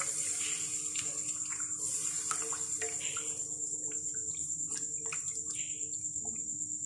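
Chicken stock sizzling in a hot butter-and-flour roux in a non-stick frying pan, a steady high hiss, while a silicone spatula stirs and scrapes it, giving short clicks and a swishing sweep every second or two.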